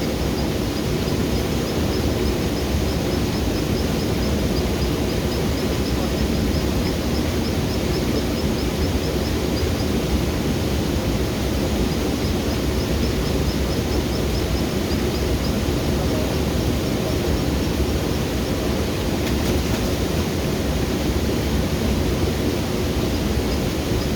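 Waterfall cascade rushing: a steady roar of falling water with no let-up. A faint, high, rapid ticking runs over it through the first half and returns near the end.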